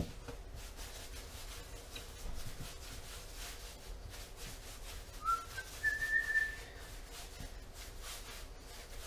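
A short whistled note, rising and then held for about a second, a little past halfway through. Under it, faint rubbing as bread dough is rolled by hand on a granite counter.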